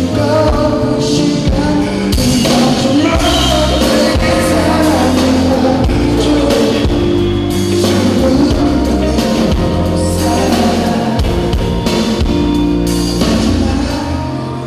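Live concert music: a male singer singing into a microphone over a loud amplified backing with drums and guitar.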